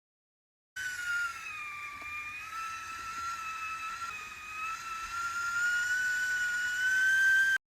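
Simplex copper kettle whistling as it steams: one steady whistle that dips slightly in pitch, then slowly rises and gets louder near the end, before cutting off abruptly.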